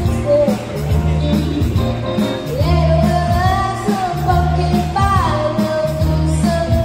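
A child singing a song into a microphone through a PA, over amplified backing music with bass and a steady beat. He holds one long note about halfway through, then his voice drops in a glide.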